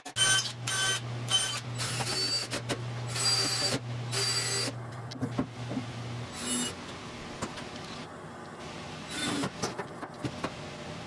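Cordless drill driving screws into pine in a series of short runs of motor whine, the busiest in the first five seconds, with two more brief runs later and light knocks of wood being handled in between.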